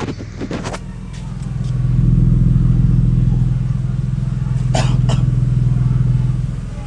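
Infiniti VQ35HR V6 running through a freshly installed Manzo stainless-steel catback exhaust and new Y-pipe, a steady low exhaust note. It swells louder about a second and a half in, holds, and eases off near the end, with a couple of brief clicks in the middle.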